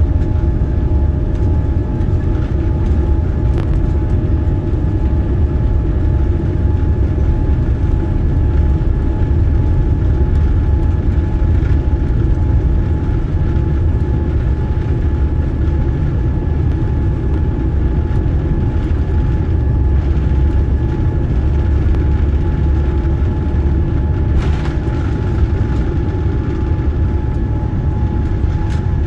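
Boeing 787-9 Dreamliner cabin noise with the engines running: a loud, steady low rumble with a few faint steady tones above it.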